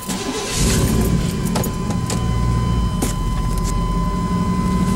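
A pickup truck's engine starts and runs steadily, heard from inside the cab. Under it a steady, high warning tone sounds, with a few light clicks.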